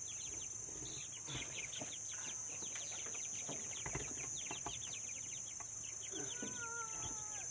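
Kampung chickens calling in the coop: many quick high chirps, and about six seconds in a longer call that slides down in pitch, over a steady high buzz.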